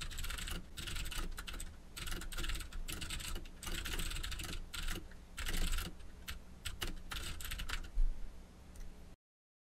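Typing on a computer keyboard: quick runs of keystrokes with short pauses between them, over a low steady hum. It cuts off suddenly near the end.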